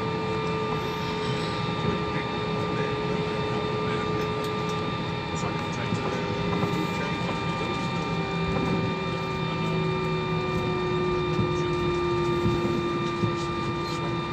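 Cabin noise of an Airbus A320-family airliner taxiing, heard from inside the cabin: the jet engines hum steadily at taxi power with several steady whining tones, one of which slowly falls in pitch.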